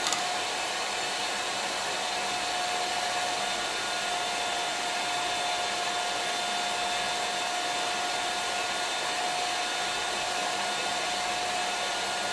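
Electric hand mixer running steadily at one speed, its beaters whipping instant cappuccino, sugar and hot water in a small glass into dalgona coffee foam: an even motor whine over a whirring hiss. The mixture is already thickening partway through the whipping.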